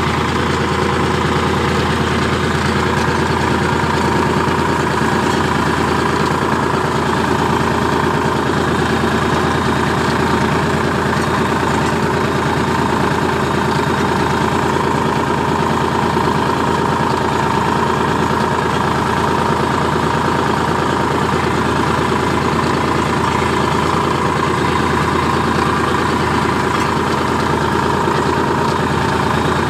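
Tractor engine running loud and steady while it pulls an inter-row cultivator through the soil.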